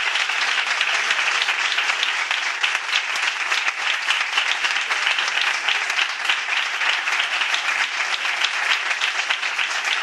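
Applause: many hands clapping at once in a steady, dense patter with no let-up.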